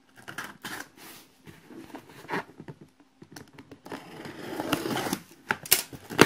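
Utility knife slicing through packing tape on a cardboard box: short scrapes and crackles of blade, tape and cardboard, thickening into a longer stretch of rustling about four seconds in. A couple of sharp knocks near the end.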